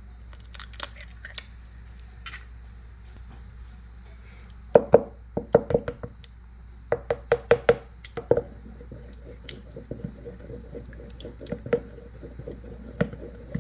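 Eggs cracked on the rim of a mixing bowl, giving a few sharp knocks, then a wooden spoon beating them into a cornmeal batter. The spoon clacks against the bowl in quick, even strokes from about halfway, then goes on as a softer, steady stirring.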